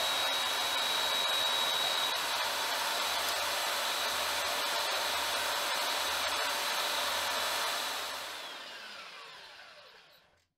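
Electric belt sander running steadily while a wooden frame piece is held against it. It is switched off about eight seconds in and winds down with a falling whine to silence.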